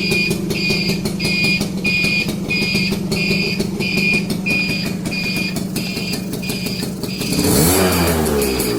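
Yamaha V80 two-stroke engine idling steadily, with one quick throttle blip near the end that rises and falls in pitch. A high pulsing beep repeats about twice a second over it.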